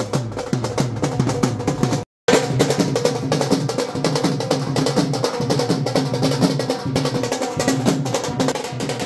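Dhol drums beating a fast, steady rhythm, as music. The sound cuts out completely for a moment about two seconds in, then the drumming and music carry on.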